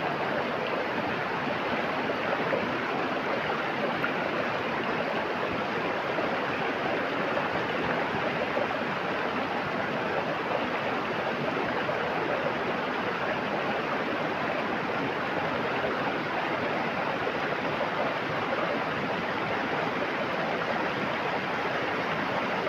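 Steady rushing of a flowing river, an even water noise that does not change.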